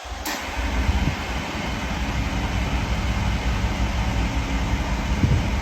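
Air rushing through a Mercedes' central tyre inflation system at the wheel hubs as the tyres are inflated or deflated: a loud, steady hiss that starts suddenly just after the beginning, over a low rumble.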